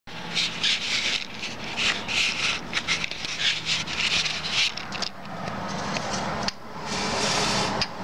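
Rubbing and scraping handling noise, many short scuffs in quick succession, for about five seconds, over a faint steady low hum. It then gives way to an even, steady outdoor noise of the street.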